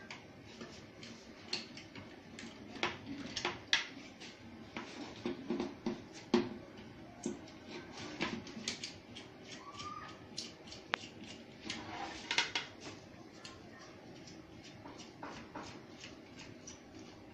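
Scattered light clicks and small knocks, irregular and close by, of hands and tools working on a set-top box's circuit board.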